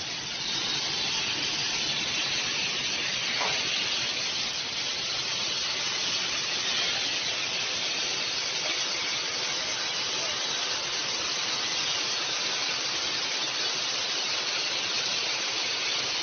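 Loud, steady hiss of compressed air escaping from a stopped train's air-brake system, even and unbroken throughout.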